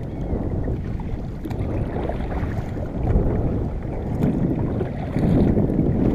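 Wind buffeting the microphone over water sloshing against a fishing kayak, swelling and easing unevenly, loudest about five seconds in.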